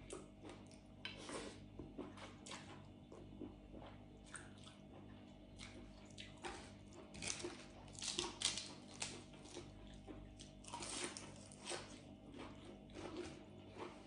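Faint eating sounds: a person chewing a rice-noodle and seafood salad, with small wet mouth noises and soft clicks, and a few crisper crackles partway through as lettuce is handled and eaten.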